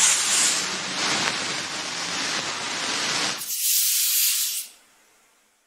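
A hissing sound effect like a spray or a burst of steam that starts abruptly and holds steady; about three and a half seconds in it thins to a higher hiss for about a second, then fades out.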